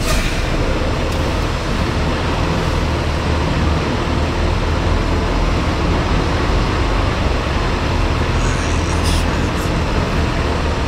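Semi-truck's diesel engine running at low speed as the tractor-trailer turns slowly, a steady low drone, with a couple of brief sharp ticks about nine seconds in.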